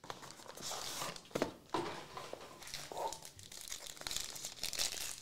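Gold foil wrapper of a 2024 Gold Standard football card pack crinkling as it is handled, with a couple of sharp clicks about a second and a half in as the cardboard box is opened.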